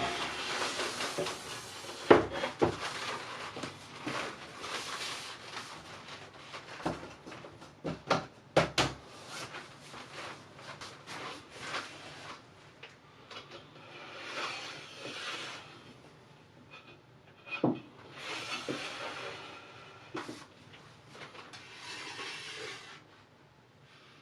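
Workshop handling sounds: scattered sharp knocks and clicks of wooden parts, with several stretches of rubbing or sliding.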